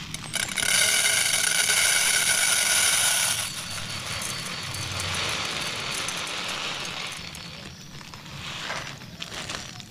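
Dry rice poured from a bag into an aluminium camping pot. At first the grains rattle on the bare metal bottom with a ringing tone. A few seconds in this gives way to a softer, steady rush as the rice lands on rice already in the pot.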